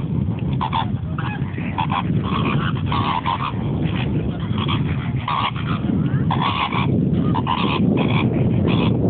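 A flock of greater flamingos honking: many short goose-like calls, irregular and overlapping, over a steady low rumble.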